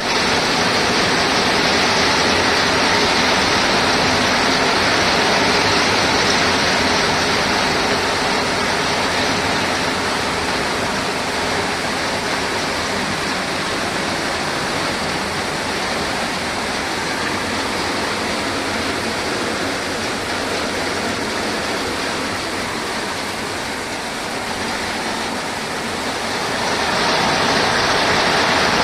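Rain falling, a steady dense hiss that eases slightly about three-quarters of the way through and builds again near the end.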